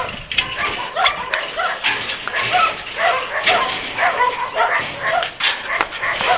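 Several dogs barking at once, short overlapping barks coming several times a second without a break.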